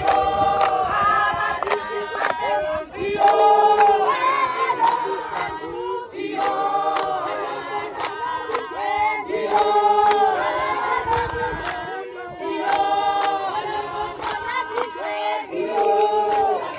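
A crowd of men and women singing together in Xhosa, unaccompanied, in a short phrase repeated about every three seconds.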